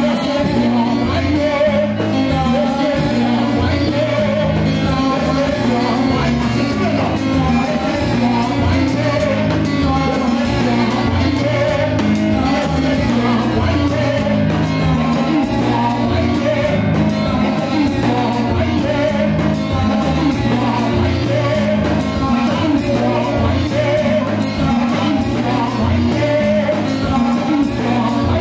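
Live church praise music: electronic keyboards playing over a steady bass line and drum beat, with voices singing.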